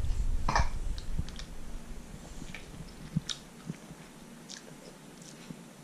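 A person chewing a mouthful of cooked fish: soft, irregular mouth clicks, loudest in the first second or two and then fading.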